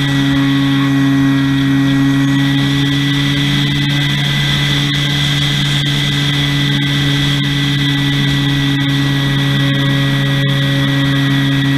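A plane's motor and propeller running at a steady speed, heard close up from a camera on board the plane in flight: a constant hum with a high whine above it, over rushing noise.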